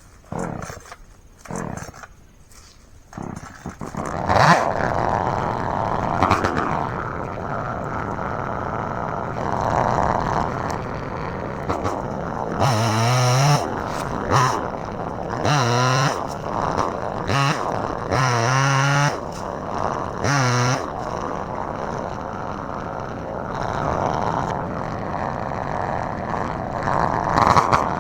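Gas chainsaw: a few short sputters, then it catches and runs steadily from about four seconds in. About halfway through it revs hard in several bursts, with the pitch wavering as it cuts into a tree.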